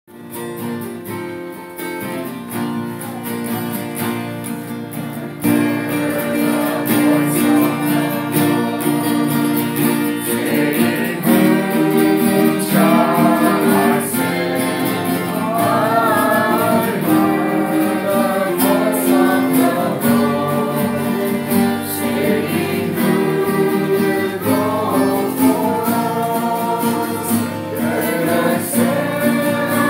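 Two acoustic guitars strumming chords while a small group of voices sings a worship song together.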